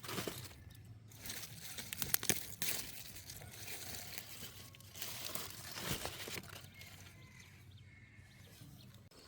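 Irregular rustling and crunching of something being handled or trampled, with a cluster of sharp snaps about two seconds in.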